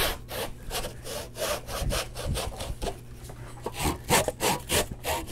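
Crosscut backsaw sawing across the grain of a board in quick short strokes, cutting a dado's side wall down to the depth line. The strokes get a little louder about four seconds in.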